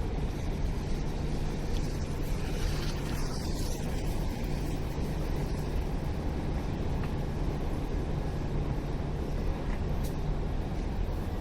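Steady city street noise: a low, even hum of road traffic with no distinct events.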